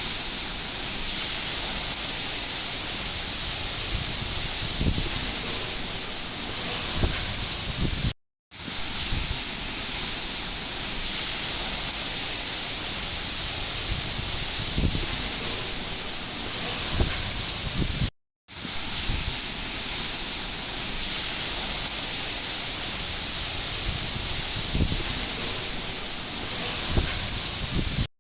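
Steady rain, a dense even hiss with a few heavier drops patting lower down. It breaks off into silence for a split second about eight seconds in and again about ten seconds later, where a short rain recording loops and restarts.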